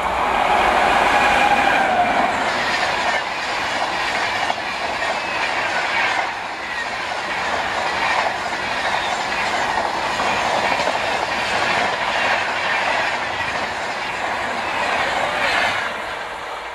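The Howrah Rajdhani Express passes at about 130 km/h behind a WAP-7 electric locomotive. The locomotive's horn sounds at the start and falls in pitch as it goes by. A long, loud rush of coaches follows, with fast clickety-clack of wheels over the rail joints, and it drops away suddenly as the last coach clears.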